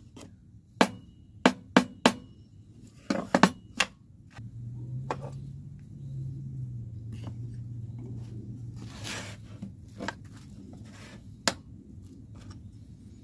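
Pine boards knocked together and set down on a table saw's metal top: a quick string of sharp wooden knocks in the first four seconds, then a few lighter clicks over a low steady hum.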